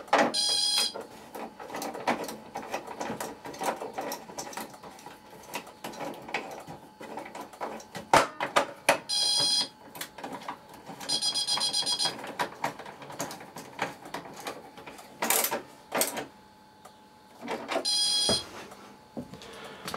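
Clicks, knocks and rattles of a Notifier BG10 manual call point being opened and reset by hand, with a louder knock or scrape near the end. Four short high-pitched electronic tones, each about a second long, sound at intervals through it.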